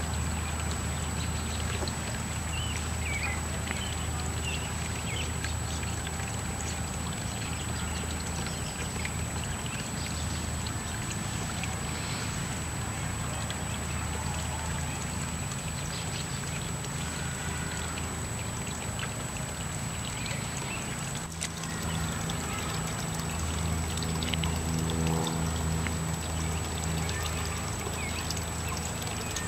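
Shallow creek water trickling and running steadily over rocks, with a low steady hum underneath.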